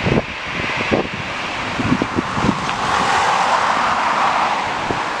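Gusty wind buffeting the microphone in irregular low thumps, over the steady rush of a taxiing twin-jet airliner's engines. The engine rush swells about three seconds in and eases again before the end.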